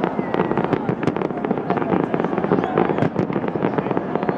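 Aerial fireworks going off in rapid succession: a dense, continuous run of bangs and crackles.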